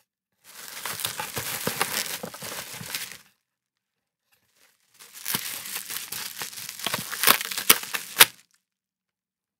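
Packaging being torn and crumpled open by hand: two stretches of crinkling and tearing, the second ending in a few sharp snaps.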